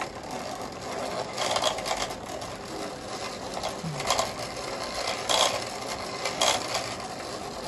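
Wooden hand-cranked bobbin winder and spinning wooden yarn swift whirring and rattling as thread is wound onto a bamboo bobbin. Louder clacks come every second or so.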